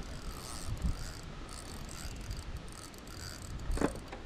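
Small fishing reel being cranked, a steady gear whir, as a hooked bluegill is reeled in, with a short knock about four seconds in.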